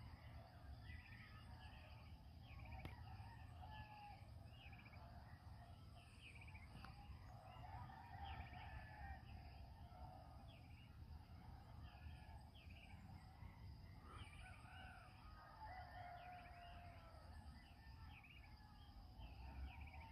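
Faint rural dawn chorus: distant roosters crowing now and then, with short bird chirps repeating about once a second and a steady high insect hum.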